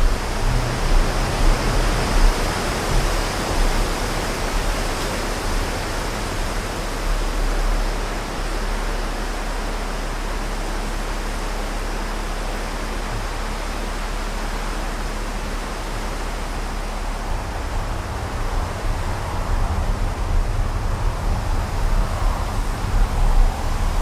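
Strong gusty wind blowing and buffeting the microphone with a low rumble; the gusts are stronger at the start, ease to a steadier rush in the middle, and pick up again near the end.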